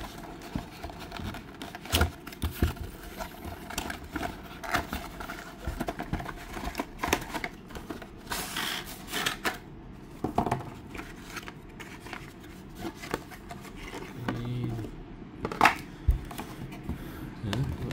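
Cardboard mouse box being opened by hand: tuck flaps pulled and bent, the inner tray slid out, rustling and scraping with scattered small clicks. A sharper knock about three-quarters of the way through.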